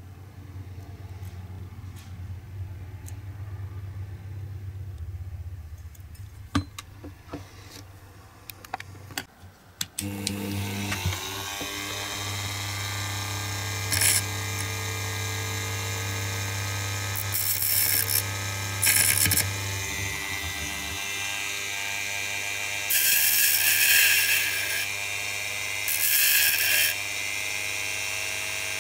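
A handheld rotary tool starts about a third of the way in, spins up and runs steadily with a felt polishing wheel. Several loud hissing bursts come as a small metal part is pressed against the spinning wheel, the longest near the end. Before the tool starts there are only a low hum and a few light clicks of the die-cast metal body being handled.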